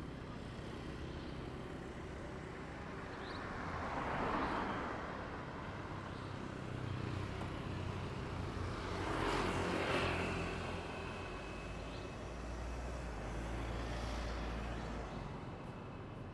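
Road traffic: motor vehicles passing by one after another over a low engine rumble. Each pass swells and fades, the loudest about four seconds in and near ten seconds in, with a softer one near the end.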